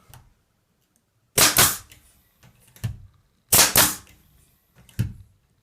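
Pneumatic air stapler, run on propane gas pressure instead of compressed air, firing twice about two seconds apart. Each shot is a sharp crack with a short hiss of exhausting gas, and a lighter click follows each shot about a second later.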